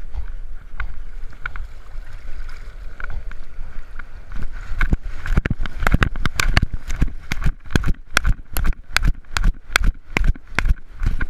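Water sloshing and rumbling against a camera strapped to a swimming Black Labrador's back, then, from about four and a half seconds in, a quick, even run of thuds as the dog's strides jolt the camera while it runs out of the surf onto the sand.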